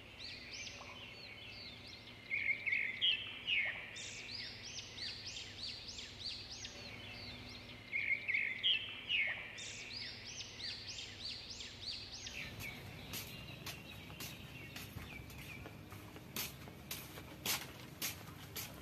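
Birds calling outdoors in quick runs of repeated chirping notes over a steady background hiss. About two-thirds of the way through, the background changes and a scatter of sharp clicks and taps follows.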